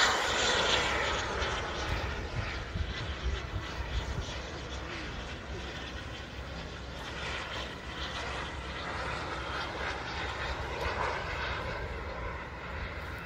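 Radio-controlled model jet flying past: a steady rushing jet noise, loudest at the start and fading over the first few seconds as it moves away, then carrying on fainter.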